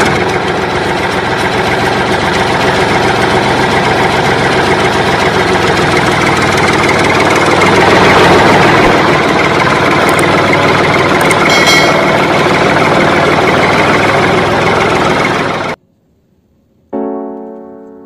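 A steady, loud engine sound effect with music under it, cutting off abruptly near the end. After a brief silence, piano notes start.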